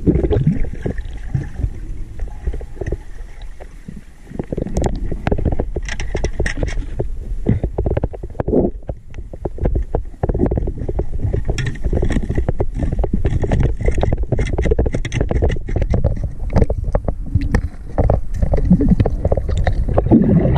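Muffled underwater noise picked up through a camera housing on a freedive: a low water rumble with many scattered clicks and knocks.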